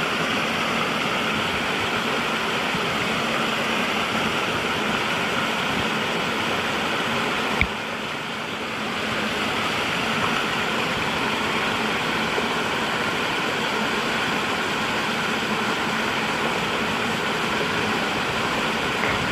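Waterfall rushing steadily, a dense, even roar of falling water, with a brief click about seven and a half seconds in.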